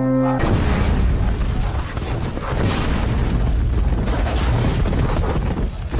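Film battle sound effects: a long low held tone breaks off about half a second in. Loud, dense rumbling noise with booms and crashes follows, like explosions and heavy impacts in a fight.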